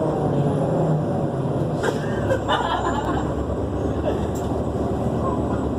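Interior of a moving Nova Bus LFS articulated city bus. The drivetrain drones steadily, with a hum that gives way about two seconds in to a low, evenly pulsing throb. A couple of rattles or knocks land around the same point.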